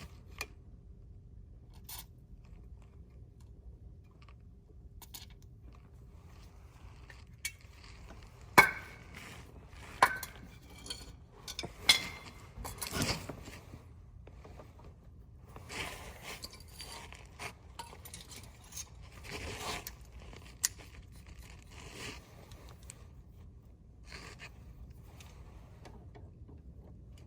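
Scattered metal clinks, clicks and scrapes of hand tools working a rusted part loose on a truck's parking brake cable linkage, gently rather than hammered. The sharpest click comes about a third of the way in, with more clusters of clinking and scraping after it.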